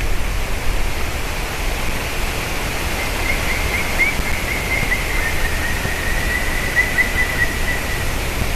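Black woodpecker giving its call series: a run of about eighteen short, evenly spaced notes, roughly four a second, starting about three seconds in and dropping slightly in pitch partway through. Under it runs a steady rushing noise.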